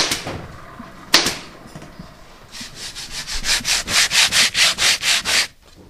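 Two sharp scuffs, then a quick run of rasping rubbing strokes by hand on a workbench surface, about four a second, stopping suddenly near the end.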